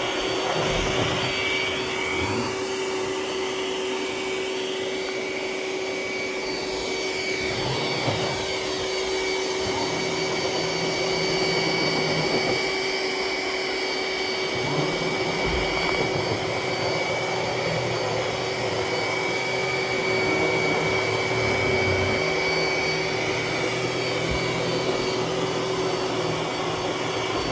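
iRobot Roomba s9+ robot vacuum running: a steady motor whine over the rush of suction, with a lower hum that comes and goes as it drives and turns.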